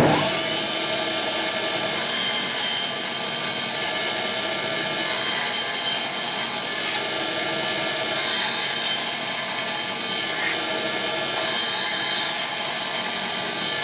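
Bandsaw running steadily, its blade cutting through a wooden workpiece.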